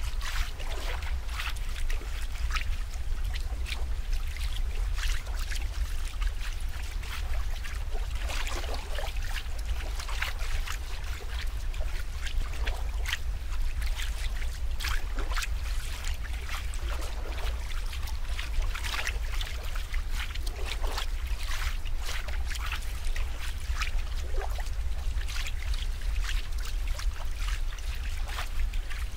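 Running water trickling and splashing in irregular little bursts over a steady low rumble.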